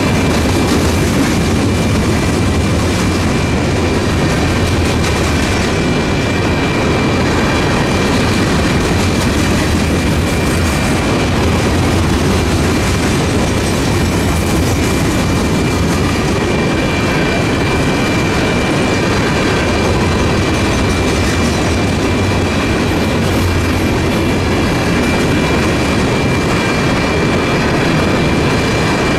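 A long train of empty open hopper cars rolling past at speed: a steady, loud rumble and clatter of steel wheels on the rails. A thin, steady high tone runs through it the whole time.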